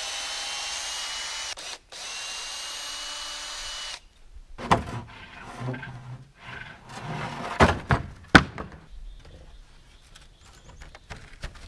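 Cordless drill running in two steady runs of about two seconds each, backing screws out of a wooden shipping crate. Then wooden crate boards knock and clatter as they are lifted off, with two sharp wooden knocks near the eight-second mark.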